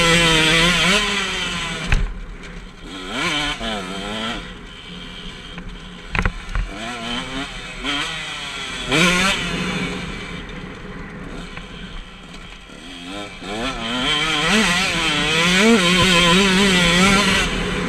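KTM 125 SX's single-cylinder two-stroke engine revving under hard acceleration, its pitch climbing and falling as the throttle opens and closes. Through the middle it drops to quieter blips and short bursts of throttle, with a couple of sharp knocks. Near the end it pulls hard again.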